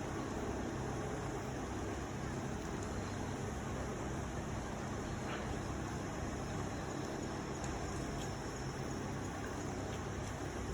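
Steady low motor hum under a constant hiss, with a couple of faint clicks.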